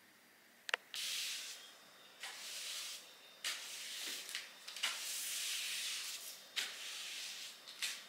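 Angled broom sweeping a wooden floor: a series of brisk swishing strokes, each lasting up to about a second and a half, after a sharp click just under a second in.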